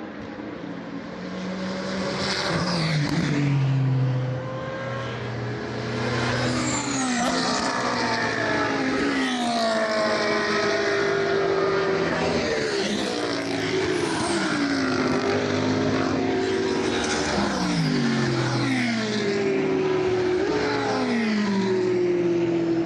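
Several GT3 race cars passing one after another at speed, engines revving hard. Their pitch repeatedly climbs and drops through gear changes and as each car goes by.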